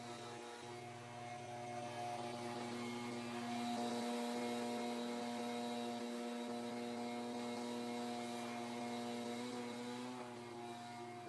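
Small gasoline engine of lawn equipment running at a steady speed, a even hum with a slight shift in pitch about ten seconds in.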